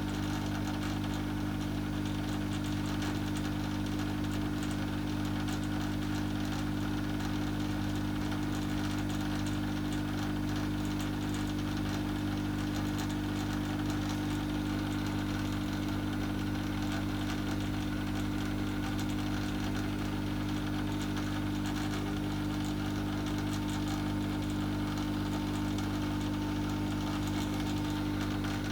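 Hot air tool running steadily, its fan blowing with a constant hum while heating heatshrink sleeving on a cable joint.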